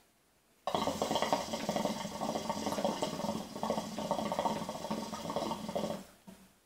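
Hookah's water base bubbling steadily as smoke is drawn through the hose in one long pull of about five seconds, starting just under a second in and stopping abruptly near the end.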